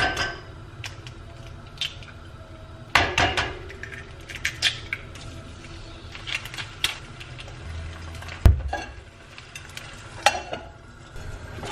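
Eggs being cracked into a ceramic frying pan and pans handled on a gas stove: scattered clicks and knocks of shell and cookware, with one heavier knock about eight and a half seconds in, as a second pan is set over the first as a lid.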